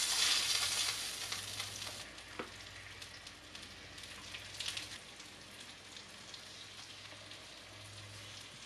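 Hot oil sizzling in a frying pan: loud at first, dying down after about two seconds to a quieter steady sizzle, with a few light clicks. The sizzle shows the oil is hot enough to fry in.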